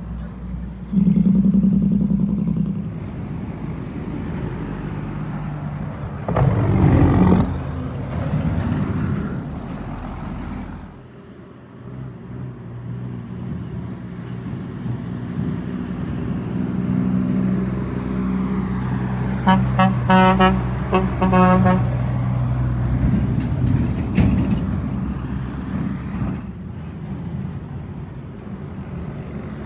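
Heavy truck running on the road, its engine a steady low rumble, with a vehicle horn sounded in a quick run of about eight short toots about two-thirds of the way through.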